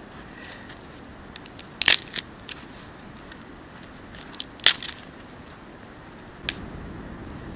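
Small dry twigs snapped by hand: a few sharp cracks, the loudest about two seconds in and again nearly five seconds in, with smaller snaps and crackles between.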